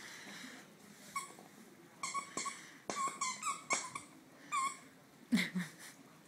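Squeaker in a plush cow dog toy squeaking in short repeated squeaks as a Greater Swiss Mountain Dog puppy chews it. Near the end comes a single short, low throaty sound from the dog, the loudest moment.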